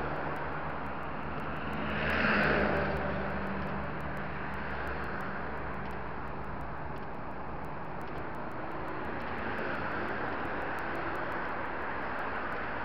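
Road traffic passing along a multi-lane road: steady tyre and engine noise, with one vehicle going by loudest about two and a half seconds in.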